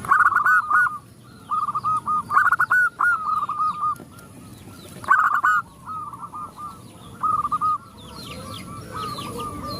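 Zebra doves cooing: repeated phrases of quick staccato notes that come in bursts and overlap, with the loudest phrases at the start and about five seconds in. Faint high chirps of small birds come near the end.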